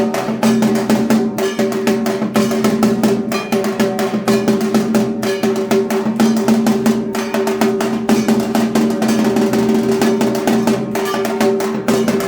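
Dhak, the Bengali barrel drum, beaten with sticks in a fast, unbroken rhythm for dhunuchi naach.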